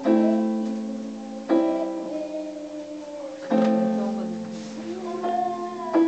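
Casio electronic keyboard playing a plucked-sounding chord accompaniment, a new chord struck about every two seconds and fading between strikes, under a girl's singing.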